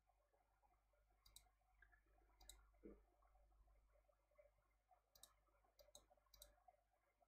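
Faint computer mouse clicks against near silence: about five short clicks spread over the seconds, with a soft low bump about three seconds in.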